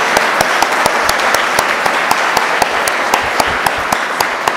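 Audience applauding: many hands clapping together in a dense patter that slowly thins toward the end.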